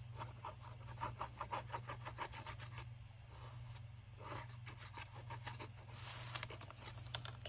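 Paper being rubbed and scraped by hand, a quick run of short back-and-forth strokes, about five a second, for the first couple of seconds, then a few scattered softer rubs: paper being glued and pressed down.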